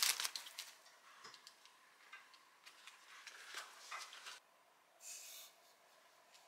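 Small dog's claws ticking and scratching on the fabric floor of a pop-up playpen, with the nylon rustling. Loudest in a cluster of clicks at the start, then scattered faint ticks and a short rustle about five seconds in.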